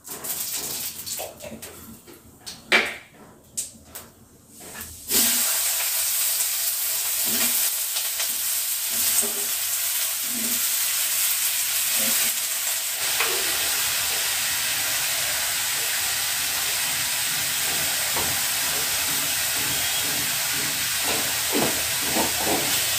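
Panch phoron (Bengali five-spice seeds) crackling and popping in hot oil in a kadai. About five seconds in, a sudden loud hiss as cut potato sticks go into the oil, settling into steady frying sizzle.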